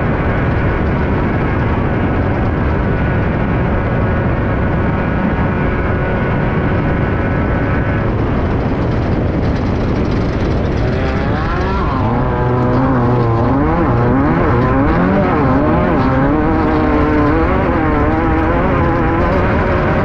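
Air-cooled VW 1600 engine of a Class 5/1600 off-road race car running hard, heard from inside the car. The note holds steady at high revs for the first half, then rises and falls over and over as the throttle is worked.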